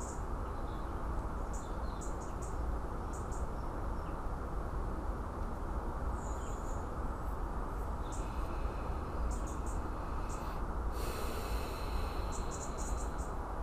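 Steady low background rumble and hiss, with short high-pitched chirps in twos and threes every second or two.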